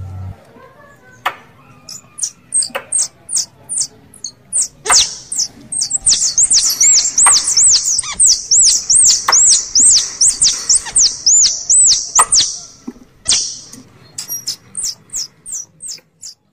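Squirrel calls of the kind used to lure squirrels when hunting: a long run of high, squeaky chirps, each rising and falling in pitch, about three a second, with sharp clicks among them. The chirps are loudest in the middle and stop just before the end.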